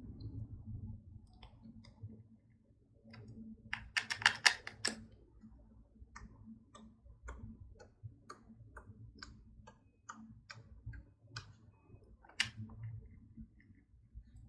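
Slime being squeezed and worked by hand, giving short sticky clicks and pops, with a denser burst of crackling about four seconds in.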